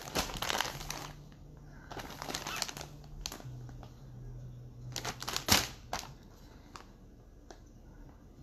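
Clear plastic bag around a packaged jersey crinkling in bursts as a hand grips and turns it, the sharpest crackle about halfway through.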